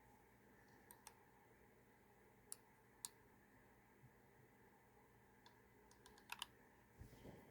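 Near silence with a few faint, sharp clicks and taps from handling an action camera and its mounting accessories. The loudest is a quick double click about six seconds in, with a soft knock near the end.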